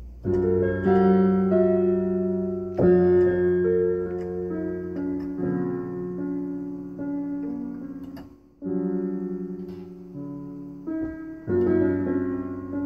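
Slow piano music: sustained chords struck every two to three seconds, each left to ring and fade, with a brief break about eight seconds in.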